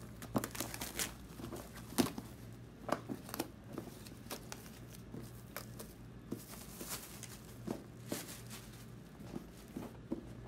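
Plastic shrink wrap being torn and peeled off a vinyl LP box set: crinkling with many scattered sharp crackles, and longer tearing rustles about two-thirds of the way through.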